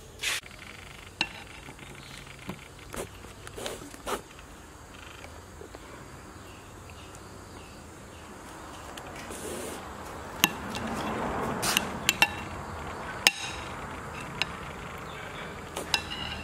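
Metal spoon clinking against a bowl of taro in coconut milk as it is eaten from. There are a few scattered sharp clinks, then a quick cluster of them about eleven to thirteen seconds in, over a swell of soft stirring noise.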